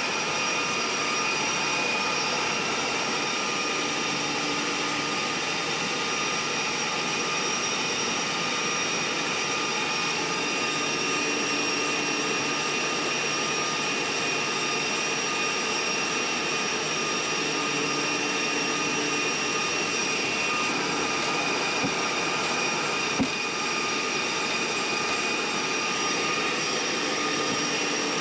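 Steady rushing running noise of a moving passenger train, heard from on board, with several constant whining tones over it. A single sharp click about 23 seconds in.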